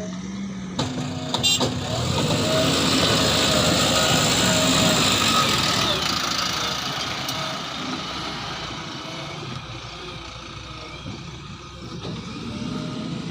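Backhoe loader's diesel engine working. It comes up under load about a second in, with a short clatter, stays loudest for a few seconds, then gradually eases back.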